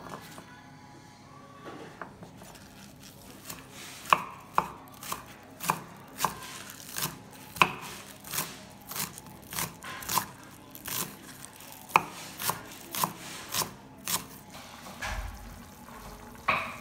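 Kitchen knife chopping spring onions and coriander on a wooden chopping board, a sharp knock about twice a second. The chopping starts about four seconds in and stops near the end.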